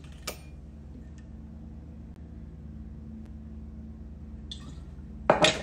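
Bar tools handled on a kitchen counter: a glass liquor bottle and a metal jigger, with a faint click about a third of a second in and a short, loud clatter near the end. A steady low hum runs underneath.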